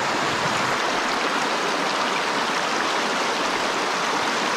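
Shallow mountain stream rushing steadily over rocks and riffles, an even hiss of moving water.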